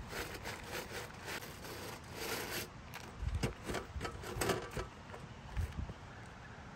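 Hiking boots scrubbed against the stiff bristle brushes and metal grate of a boot-cleaning station, a series of rough scraping strokes that scrape mud off the soles. The strokes come faster and heavier, with low scuffs and thumps, from about three to five seconds in.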